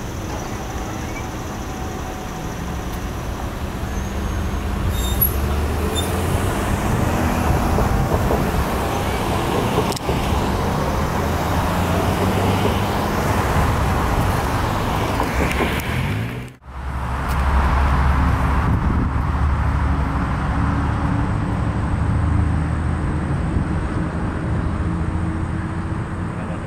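Road traffic driving past, cars and heavier vehicles, getting louder a few seconds in. It cuts out abruptly for a moment about two-thirds of the way through, then traffic noise resumes.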